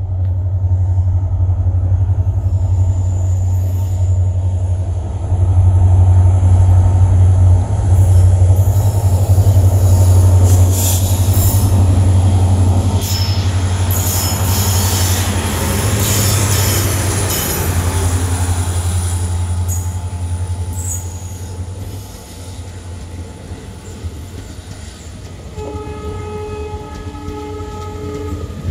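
EMD WDP4D locomotive's two-stroke V16 diesel engine accelerating a passenger train, a loud deep steady rumble. It is at its loudest as the locomotive passes, with high-pitched wheel squeal and rail hiss. The engine fades after about twenty seconds, leaving the coaches rolling by, and near the end a train horn sounds in short repeated blasts.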